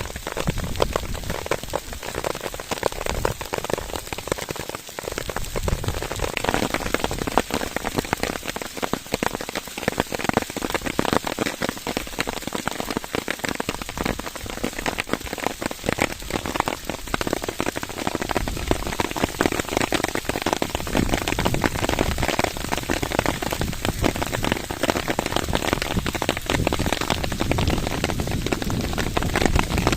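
Rain falling heavily during a thunderstorm: a dense, steady stream of drop impacts, with a low rumble that grows heavier in the second half.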